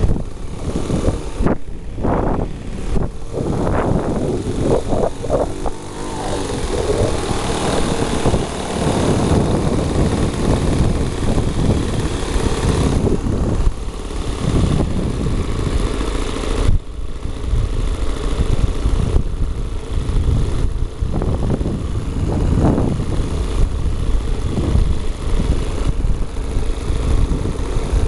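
RC model airplane engine running, its pitch rising and falling in the first few seconds.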